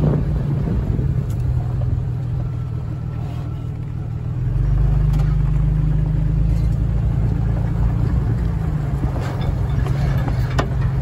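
A vehicle driving a desert dirt road: its engine runs as a steady low drone that grows louder and heavier about four and a half seconds in, with a few sharp ticks near the end.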